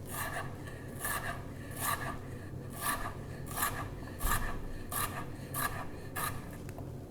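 Kitchen knife cutting through raw peeled potato onto a cutting board, slicing it into 1 cm sticks: about ten even, rasping strokes, a little over one a second.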